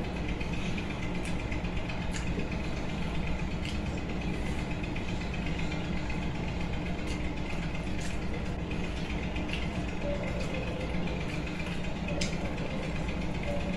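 Steady low machine hum with a few faint, short clicks as a hand mixes rice on a plate.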